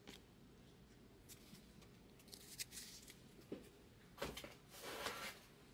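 Faint handling of trading cards on a tabletop: a few light taps and clicks as cards are moved, then a short rustle of cards being slid and shuffled about four seconds in.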